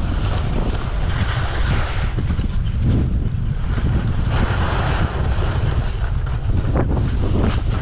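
Wind buffeting the microphone of a body-worn camera on a fast ski run, under the hiss of skis scraping over chopped-up snow that swells with each turn, about once a second.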